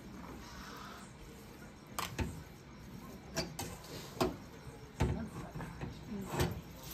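Metal spoon and tongs clinking and scraping against a steel wok while stirring food: a series of sharp clinks, about seven, the loudest about five seconds in.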